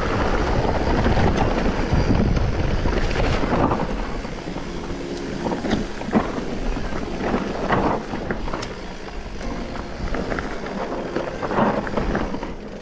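Mountain bike descending a dry dirt trail: a noisy rumble and rattle of tyres and bike over rough ground, with wind on the microphone. It is louder for the first four seconds or so, then eases off, with occasional knocks.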